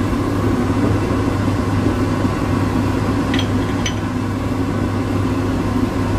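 A small motor humming steadily, with two faint light ticks about half a second apart between three and four seconds in.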